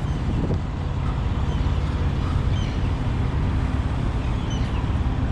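Semi truck's diesel engine idling steadily, with a few faint, short high chirps, like small birds, over it.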